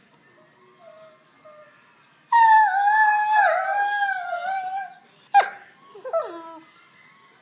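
Doberman puppy howling while playing: one long, wavering howl starting about two seconds in, then a sharp yelp and a couple of short falling yips.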